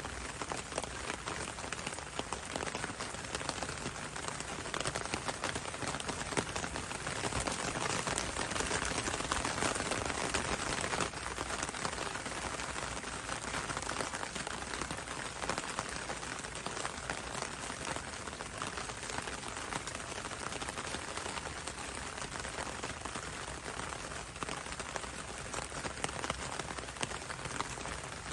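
Steady rain falling on leafy foliage, a dense even patter of drops, slightly heavier for a few seconds near the middle.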